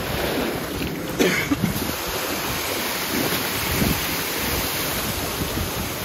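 Rushing whitewater churning through a river rapids ride channel, with wind buffeting the microphone. A sharp hit stands out about a second in.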